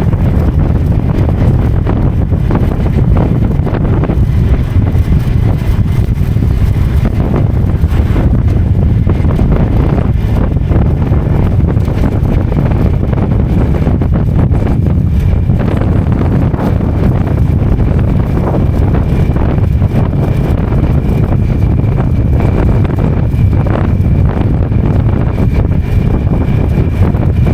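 Motorcycle engine running steadily at road speed, with heavy wind buffeting on the microphone as the bike rides.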